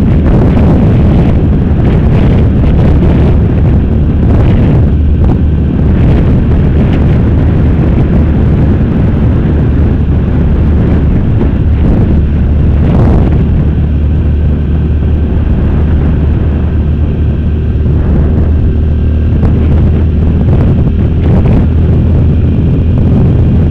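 Wind rushing over a helmet-mounted microphone on a moving sport motorcycle, loud and steady, with the motorcycle's engine note faintly underneath.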